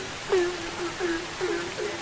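Several frogs calling in a chorus, short croaks that each slide down in pitch, several a second with a louder one now and then, over the steady hiss of rain.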